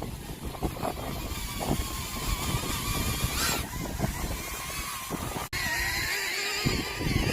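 Small DJI Neo 2 drone's propellers whining, their pitch wavering up and down as the motors work against the wind, with gusts rumbling on the microphone. The sound drops out briefly about five and a half seconds in.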